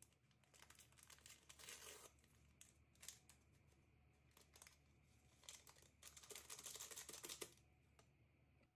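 A small sachet of baking powder crinkling and tearing as it is opened and shaken out over a bowl, in short faint bursts, the loudest spells about a second in and again near the end.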